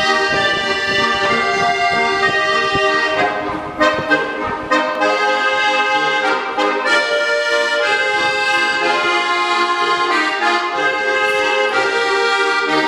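Button accordion played live: a folk-style tune of held melody notes over short, recurring bass notes.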